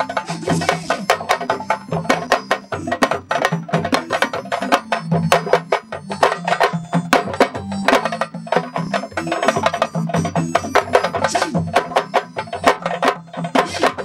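Sabar drums played fast and hard, a dense stream of sharp slaps and strikes in a quick dance rhythm.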